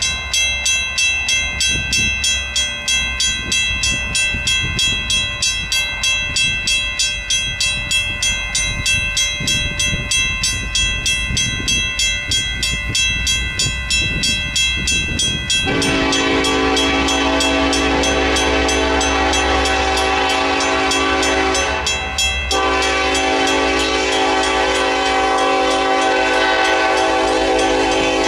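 Railroad crossing bells ringing, with even, rapid strikes about three a second; the crossing has a mechanical Western Cullen Hayes bell and an electronic bell. About halfway through, the approaching Union Pacific EMD locomotive's multi-chime air horn starts. It sounds a long blast, breaks briefly about six seconds later, then blows again, drowning out the bells.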